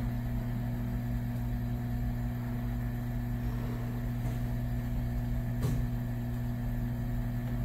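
Hot-air rework gun blowing steadily onto a circuit board to melt the solder under a microcontroller: a constant even hum with a low drone beneath it. There is one faint tick about three-quarters of the way through.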